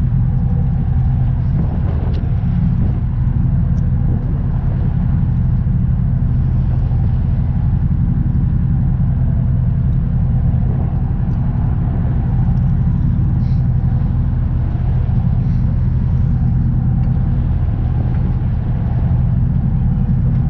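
An engine running steadily at an unchanging speed, a loud low hum.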